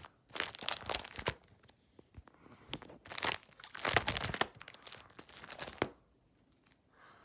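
Clear plastic card-sleeve pages of a baseball card binder crinkling and crackling as they are handled and turned, in three spells of crackling with a quiet last second.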